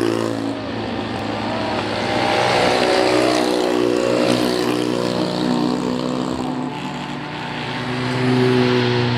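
Small Fiat rally cars, a Fiat 126p and Fiat Seicentos, driving past one after another in convoy back down a hill-climb course after a practice run. Their engines run with pitch rising and falling as each car approaches and passes, getting louder about three seconds in and again near the end.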